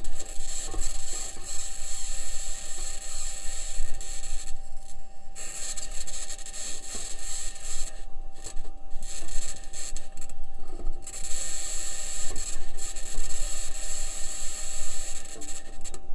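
Perseverance rover's metal wheels rolling over Martian rock: a harsh, continuous scraping and grinding with rattles, dropping out briefly a few times. A thin steady tone runs through it.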